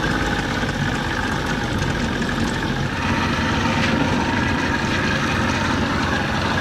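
60 hp Johnson outboard motor running steadily, a little louder about three seconds in.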